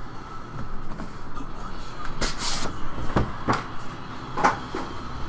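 Boxes of trading cards being handled and shifted on a table: a short scrape about two seconds in, then a few sharp knocks and clicks.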